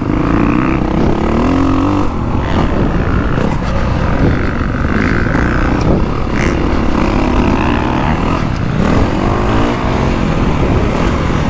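Honda CRF450R Works Edition's single-cylinder four-stroke engine heard from on board while riding, its pitch rising and falling with the throttle, climbing over the first two seconds.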